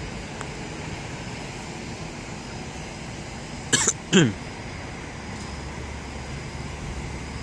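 A person coughing twice close to the microphone, about four seconds in, the second cough falling in pitch, over steady background noise.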